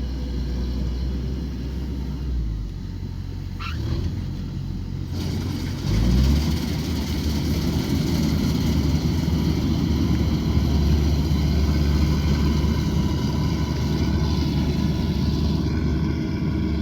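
Engine of a rice harvesting machine running under load. It eases off about two seconds in and gives a brief rising whine near four seconds. About six seconds in it revs up and then runs steadily louder.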